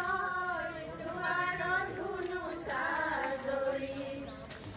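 High voices singing a held, wavering melody, with some talk mixed in.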